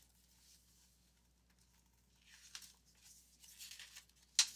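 Pages of a hardcover picture book being turned by hand: paper rustling, then a sharp slap as the page settles near the end.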